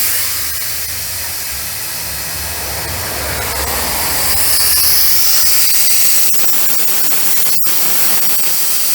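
Vacuum brake bleeder pump hissing steadily as it draws brake fluid out of the brake system, with a low hum under the hiss for about the first six seconds. The sound cuts out for an instant about seven and a half seconds in.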